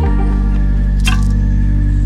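Background music with sustained low chords and a strong bass, changing chord at the start, with a single sharp percussive hit about a second in.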